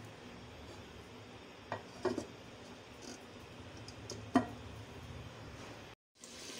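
A clay lid knocks against the rim of an earthenware cooking pot as it is set on to cover the pot: a couple of light clinks about two seconds in, then a sharper knock a little after four seconds.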